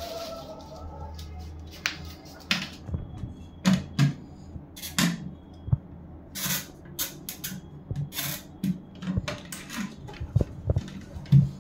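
Chrome push-button flush plate of a Hindware concealed cistern being handled and pressed onto its plastic mounting frame: an irregular series of clicks, knocks and short rustles.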